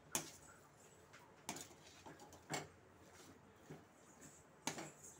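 Spatula knocking and scraping against a stainless steel pan as mashed potato is stirred: a few faint, separate strokes.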